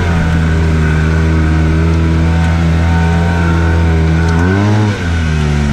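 Arctic Cat Wildcat Trail 700 side-by-side's engine running steadily while driving, with a brief rise and fall in pitch, a short rev, about four and a half seconds in, then running on at a steady pitch.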